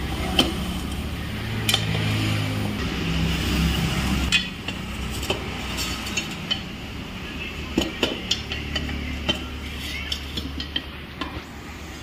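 Steel tyre lever clinking and scraping against a scooter's metal wheel rim as a new tyre's bead is pried over the rim edge, in a string of irregular sharp metallic clicks. A low hum runs underneath, swelling twice.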